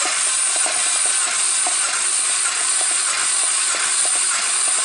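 BMW N52 2.5-litre straight-six being turned over without firing, a steady hissing whir with faint irregular ticks. The engine is being cranked for a compression test of its second cylinder.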